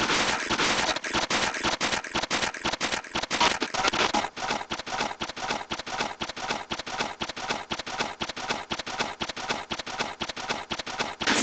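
Feet landing on the floor during jumping jacks: a fast, even run of thumps, several a second.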